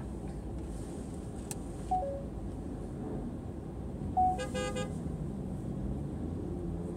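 A car horn sounds one short honk, lasting about half a second, about four seconds in, over the steady low hum of stopped traffic heard from inside a car.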